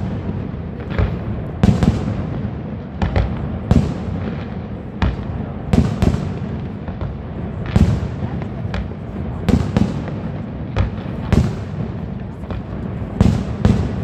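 Fireworks display: aerial shells bursting in an irregular string of sharp bangs, roughly one or two a second, over a steady low rumble.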